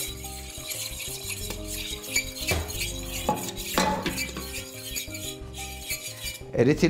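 Fork stirring beaten eggs and milk in a stainless steel pot, its metal tines clinking irregularly against the pot. Soft background music with held notes.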